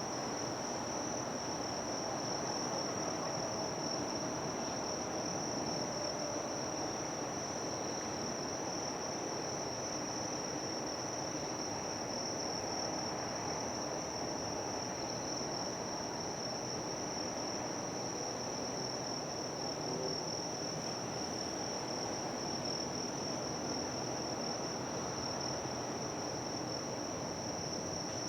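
Insect chorus: a steady, unbroken high-pitched shrilling, over an even low rumble of ambient noise.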